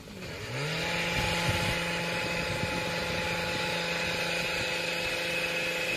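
Petrol hedge trimmer's small two-stroke engine revving up about half a second in, then running steadily at high revs with an even, high-pitched drone.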